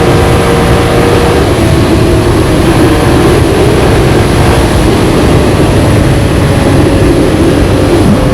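Can-Am Outlander ATV being ridden, its engine running steadily under a loud, even rush of noise.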